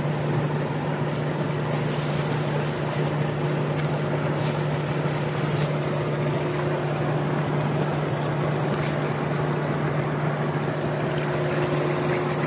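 Steady, unchanging motor hum from a small hydroelectric plant's machinery, a low drone with a fainter higher tone above it, over the even rush of river water.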